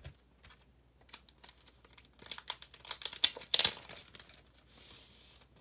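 Plastic comic book bags crinkling as bagged comics are handled, a run of crisp crackles through the middle, loudest about three and a half seconds in.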